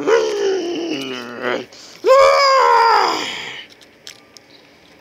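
A person's voice making two drawn-out, wavering wails, the second rising and then falling in pitch.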